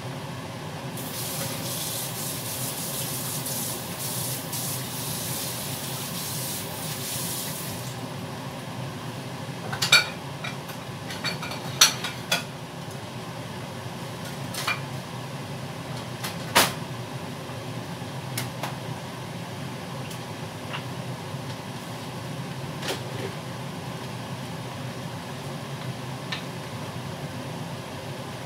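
Kitchen tap running for about six seconds and then shut off, followed by a series of sharp clinks and clatters of dishes and utensils, over a steady low hum.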